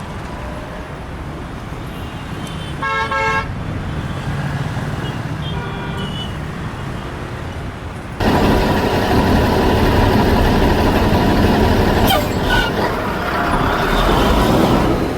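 Vehicle engine noise with a short horn toot about three seconds in; about halfway through, the sound cuts suddenly to a louder, rougher rumble.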